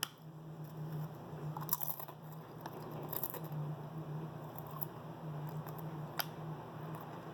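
Faint handling noises from a squishy travel neck pillow being worn and shifted, with a few short clicks and crackles, over a steady low hum.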